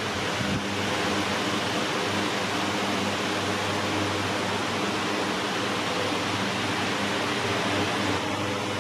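Steady rushing noise with a low, steady hum underneath.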